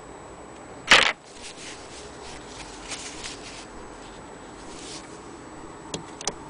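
Denim fabric rustling as it is handled, with one loud brushing rustle about a second in, fainter rustles after it, and two light clicks near the end.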